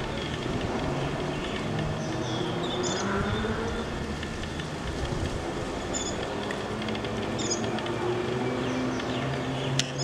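Motor vehicle engine noise: a steady low drone that slowly rises and falls in pitch. Short, high bird chirps come through over it several times.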